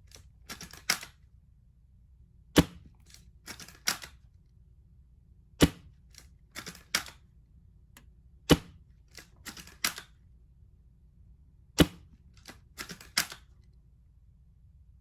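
Tokyo Marui VSR-10 Pro Sniper spring-powered bolt-action airsoft rifle firing four sharp shots about three seconds apart. Between the shots the bolt is worked in a quick run of smaller clicks.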